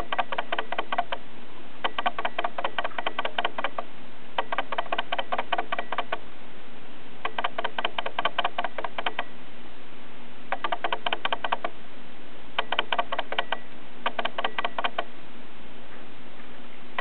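Young tabby cat, part Turkish Angora, purring right at the microphone: a rattling purr in about seven bursts, each a second or two long with short pauses between.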